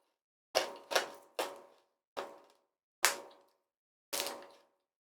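Microwaved pork rinds crackling and crunching: about six sharp crunches at uneven intervals, each dying away quickly.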